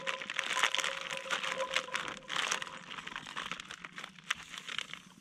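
Plastic food pouch crinkling and crackling in quick irregular clicks as it is squeezed and shaken to empty diced meat into a skillet.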